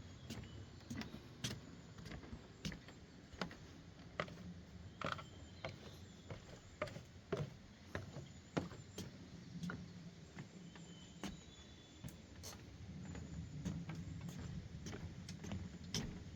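Irregular sharp clicks and knocks over a low rumble, with a few faint, short high bird chirps about five and eleven seconds in.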